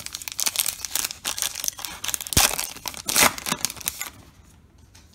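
The wrapper of a 2021 Topps Allen & Ginter card pack being torn open and crinkled, a dense run of crackles with a couple of sharp rips, stopping about four seconds in.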